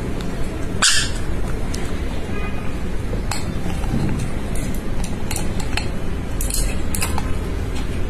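Scattered sharp clicks and clinks of conures' beaks tapping against a ceramic mug as they drink from it, over a steady background hiss.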